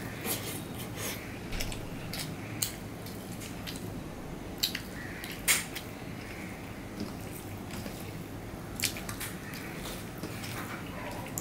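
Close-miked eating by hand: chewing and wet mouth sounds, with fingers mixing rice on a steel plate. A string of short, sharp, wet clicks runs through it, the loudest about five and a half seconds in.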